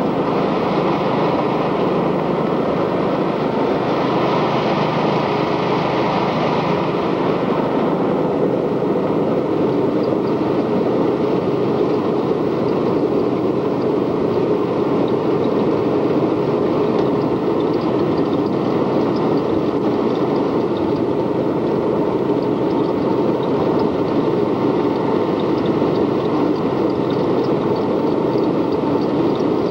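An ATV running steadily while riding along a dirt road, its engine and road rumble an even, unbroken noise.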